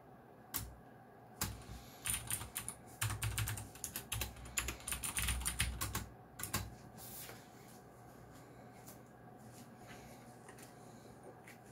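Geekstar x Deck Hassium Pro 108 mechanical keyboard with clicky blue switches being typed on: a quick, irregular run of sharp key clicks that stops a little after halfway, leaving only faint room noise.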